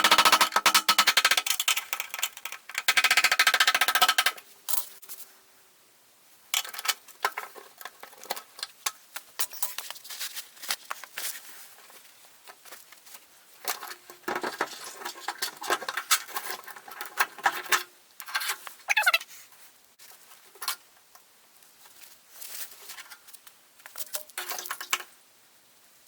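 Hand work on a fuel pump and float assembly: rapid, dense clicking and rattling of metal and plastic parts for the first four seconds, then scattered clicks, knocks and handling noises with short pauses.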